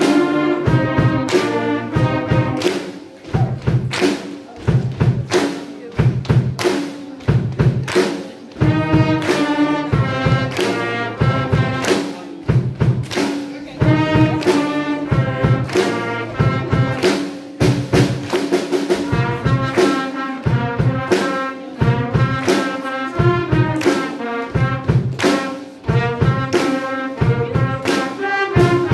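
School wind band playing a piece: flutes, clarinets, saxophones, trumpets and tuba over a steady drum beat.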